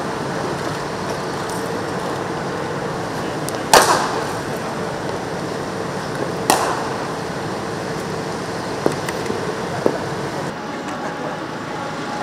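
Two sharp cracks of a hard cricket ball being struck in practice nets, about three seconds apart, over a steady background hum. A couple of lighter knocks follow later.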